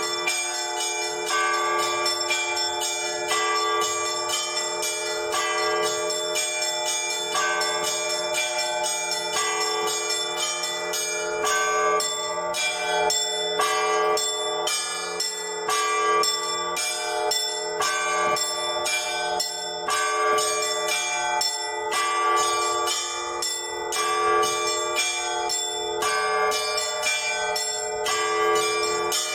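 Orthodox church bells played by a single bell ringer: rapid strikes of the small bells over a pattern of middle bells repeating about every two seconds, with the larger bells ringing on underneath.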